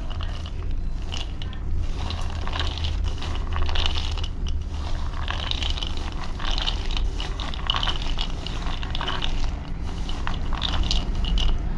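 Raw peanuts, damp with salted water, being stirred by hand in a bowl: a continuous clatter of many small nuts knocking and rubbing against each other, over a steady low hum.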